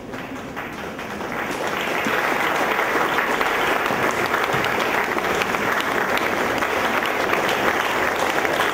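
Audience and cast applauding, the clapping swelling over the first two seconds and then holding steady.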